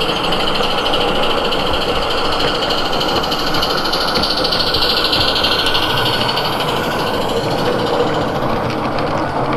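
Live-steam garden-scale locomotive running close by with its coaches: a steady hiss of steam mixed with the running of the wheels on the track.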